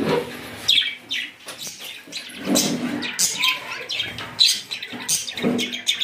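Budgerigars chirping and chattering in a fast run of short, high calls.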